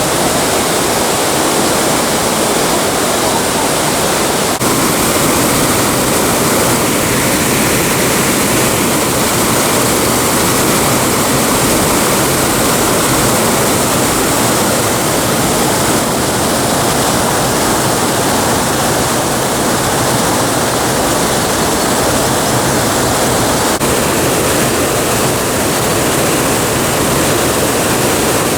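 Waterfall: falling water making a loud, steady rushing noise without a break.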